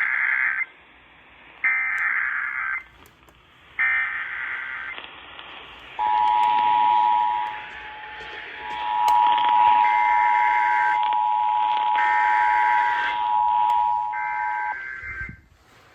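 Emergency Alert System activation: three one-second bursts of the SAME digital header data, then the steady two-tone attention signal of 853 and 960 Hz. A second set of three header bursts plays over the attention tone, and the tone cuts off shortly before the end.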